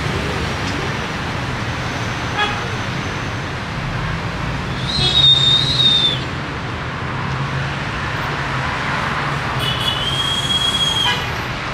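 City street traffic: engines running steadily, cut through by two long high-pitched toots, each about a second long, roughly five seconds apart.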